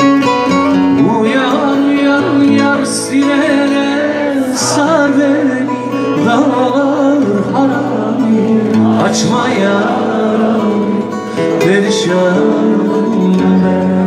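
Male voice singing a Turkish folk song to acoustic guitar accompaniment. The singing stops about eleven seconds in and the guitar carries on alone.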